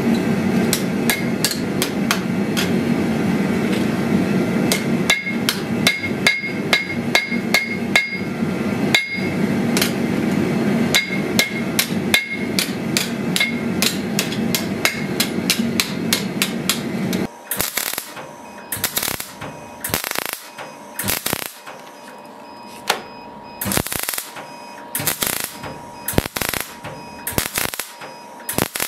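Hand hammer striking a thin steel fitting on an anvil in quick blows, about three to four a second, some ringing, over a steady low machine hum. About two-thirds of the way through the hum cuts off, and slower, spaced hammer taps with a higher ring follow.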